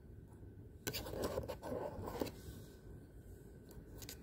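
Handling noise close to the microphone: about a second and a half of scraping and rustling with several clicks, starting about a second in, as small plastic parts are handled during unboxing. A couple of sharp clicks come near the end.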